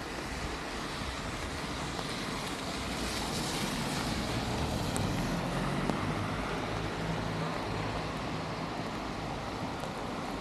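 Wet-road traffic in the rain: a car passing on the wet street, its tyre hiss swelling about three seconds in and an engine hum following, over a steady background hiss.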